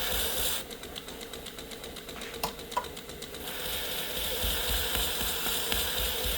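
Powered belt knife sharpener running with a steady motor hum while a clamped pocket knife is deburred against the belt. The grinding hiss stops about half a second in, two light clicks come near the middle, and the grinding starts again after about three and a half seconds.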